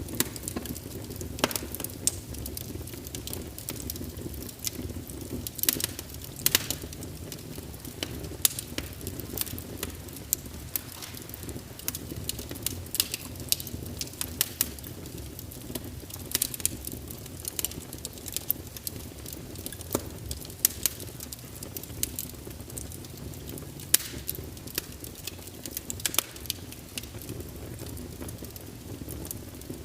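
Fireplace fire burning, with a steady low rumble and frequent irregular sharp crackles and pops from the burning wood.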